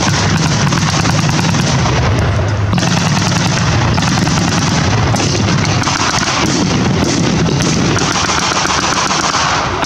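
Rapid, continuous blank gunfire from rifles and automatic weapons in a mock battle: many overlapping sharp shots with no pause.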